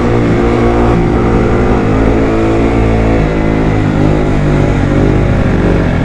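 Motorcycle engine running under way, its pitch shifting a little with the throttle, over wind noise on the microphone.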